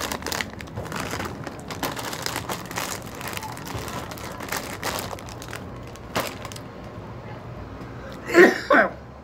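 Plastic snack-bag packaging crinkling as it is handled and pulled open, a dense run of crackles for about the first six seconds. Near the end there is a loud, brief voice sound in two short bursts.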